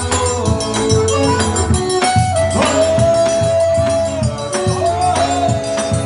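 Live band music: an accordion holding long notes over a steady beat on a large hand-played bass drum, with rattling percussion.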